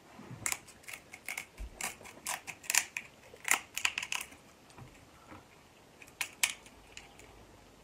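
Kitchen shears snipping through the shell of a cooked king crab leg: a quick run of sharp crackling clicks for about four seconds, then two more about six seconds in.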